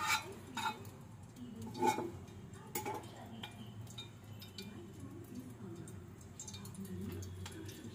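A few light clinks and knocks of kitchen utensils against the pan and counter, four clear ones in the first three seconds and fainter ticks after, over a low steady hum.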